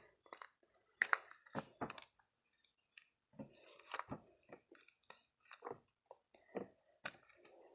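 Homemade squishy filled with kinetic sand being squeezed and kneaded by hand: faint, irregular soft crunching and crinkling, with a short pause a couple of seconds in.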